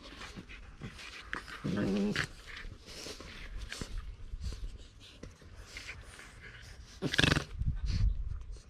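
Puppies growling while play-fighting, with a louder growl about two seconds in and a harsher, louder outburst about seven seconds in, small clicks and scuffles in between.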